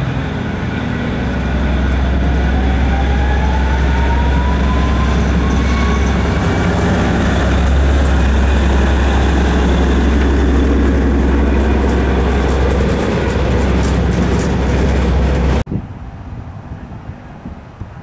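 Train running close by with a loud low rumble and a whine that rises in pitch over the first several seconds. The sound cuts off abruptly about three-quarters of the way through.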